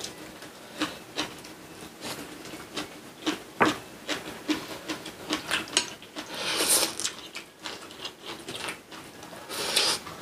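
Close-up mukbang eating sounds: a run of small chewing clicks and utensil taps, with two longer, hissier bursts around six seconds and near the end.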